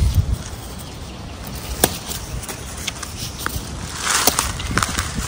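Close rustling of leafy plants with a few sharp snaps, as garlic mustard stems are picked by hand, over a low rumble on the microphone. The rustle is loudest about four seconds in.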